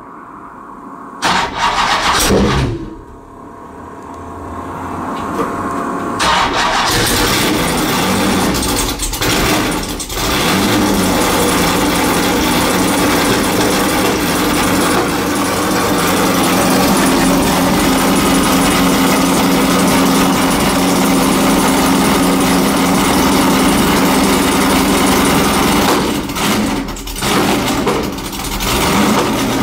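A Lola racing car's engine being started: it fires about a second in, falters, then builds up to running steadily and loudly, with the revs dipping and picking up a few times.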